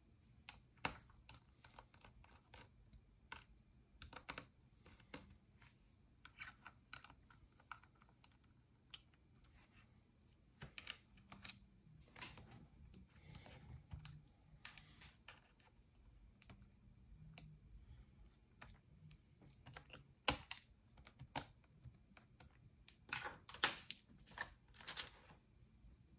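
Quiet, irregular light clicks and taps of small hard objects being handled at a repair bench, some in quick clusters and the loudest ones near the end. A faint steady high-pitched tone runs underneath.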